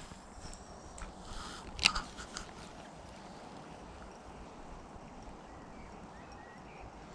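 Clicks and knocks of a baitcasting reel and fishing gear being handled, the loudest a sharp click about two seconds in, then a faint steady outdoor hiss.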